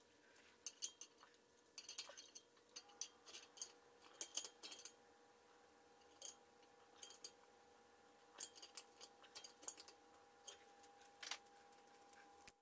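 Faint, scattered clicks and light metallic taps of hands and a small hand tool handling the brass fittings of a compressor tank's drain valve.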